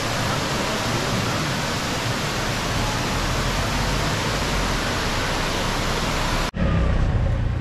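Steady rushing of Ravana Falls' falling water, cut off abruptly about six and a half seconds in, when a lower rumble takes over.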